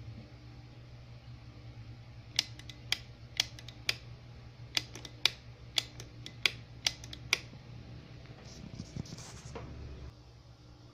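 A series of sharp, evenly spaced clicks, about two a second, over a steady low hum: four clicks, a short pause, then six more. A brief rustle follows near the end, and the hum drops off after it.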